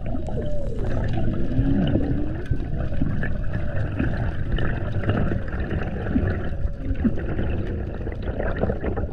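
Underwater ambience picked up by a camera below the surface: a steady low rush of water, with faint short wavering tones drifting up and down in pitch.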